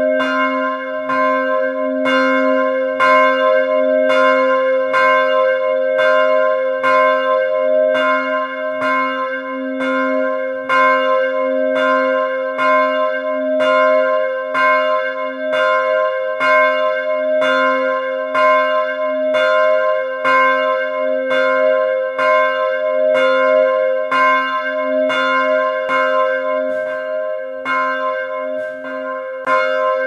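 A single church bell in an open belfry tower ringing, struck at a steady, even rate about every three-quarters of a second. One unchanging tone hums on between the strokes.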